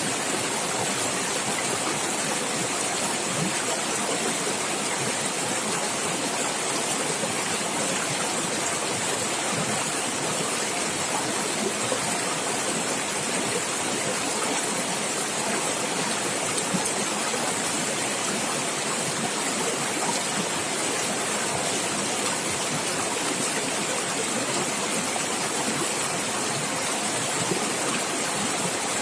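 Stream water running and gurgling steadily over rocks, a constant rushing splash.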